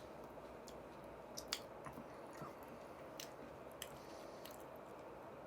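A person chewing fried chicken wings close to the microphone: faint, moist chewing with several sharp little mouth clicks and smacks, over a steady low background hum.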